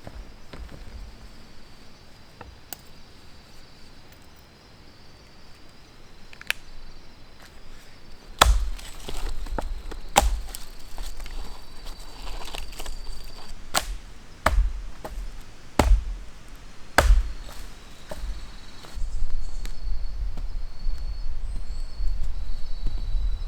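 Firewood being chopped with a blade: about seven sharp strikes on wood, one to two seconds apart, starting a few seconds in. A faint steady high insect call runs underneath.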